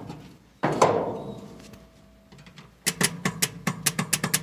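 Starter circuit of a 1965 Ford F-500 fire truck being jumped across the solenoid terminals. One sharp clunk comes early, then, about three seconds in, a rapid run of clicks at about seven a second, with no engine cranking to speed. The clicking is what leads the owner to say it needs a new solenoid.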